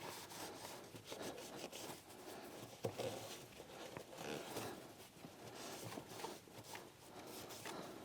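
Faint rubbing and rustling of a cloth wiping an oily engine part clean, with a few soft clicks of handling.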